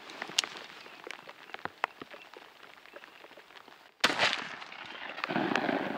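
Rain dripping, with scattered sharp taps of drops, then about four seconds in a sudden loud shotgun shot followed by a noisy tail.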